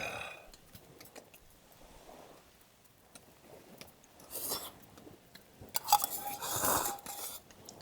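Someone eating at a meal: quiet chewing with small clicks of utensils against dishes, a scrape about four and a half seconds in, then a sharp clink near six seconds that rings on briefly under a longer scrape.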